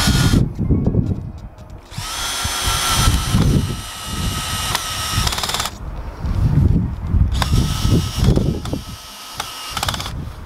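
Power drill driving screws into a wooden gutter support, in three runs of steady motor whine: a brief one at the start, then two of about three or four seconds each with a pause between.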